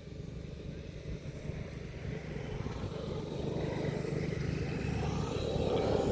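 A motor vehicle running and drawing closer, its sound swelling to a peak near the end and then starting to fade as it passes.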